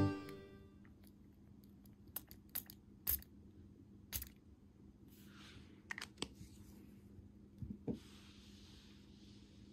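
Quiet room with a few faint, scattered clicks and taps and two short, soft hisses.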